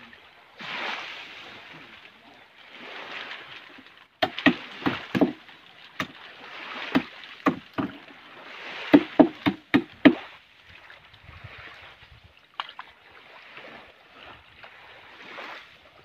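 Water washing and sloshing against a small boat in slow swells. About four seconds in comes a run of a dozen or so sharp knocks on the hull, lasting about six seconds.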